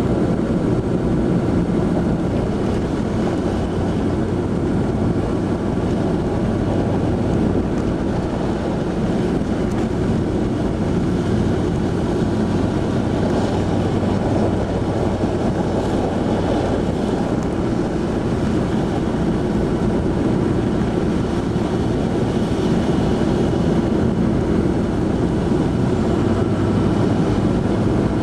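Steady engine hum and road noise heard from inside a vehicle driving along a snow-covered road.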